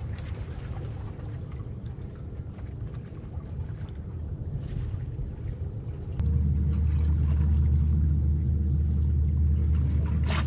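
Wind buffeting the camera's microphone, a steady low rumble that jumps suddenly louder about six seconds in.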